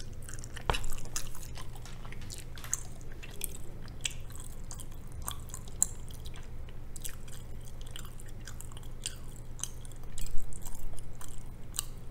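Close-up chewing of a big mouthful of spicy cheese rabokki noodles: irregular wet mouth clicks and smacks. The chewing is louder about a second in and again near the end, over a steady low hum.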